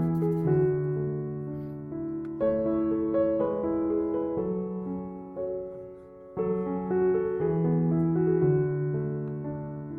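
Background music: a slow, gentle piano piece with chords played about once a second.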